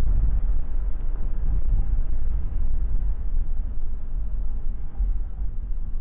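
Steady low rumble of road and engine noise heard from inside a moving vehicle.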